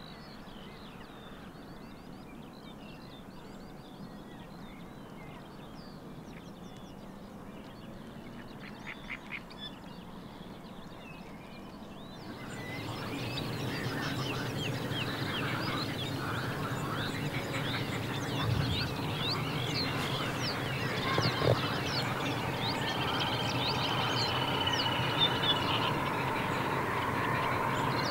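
Many wetland birds calling and singing together. About twelve seconds in the sound becomes louder and fuller, thick with quick chirps and calls.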